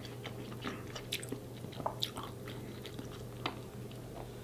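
Close-miked eating sounds while king crab meat is dipped in butter sauce: soft chewing and scattered small wet clicks, over a steady low hum.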